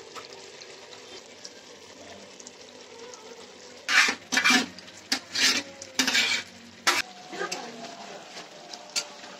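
Chicken and spiced gravy frying in a pan with a steady low sizzle; about four seconds in, a spoon stirs and scrapes against the pan in a quick run of loud strokes for about three seconds, then the sizzle carries on.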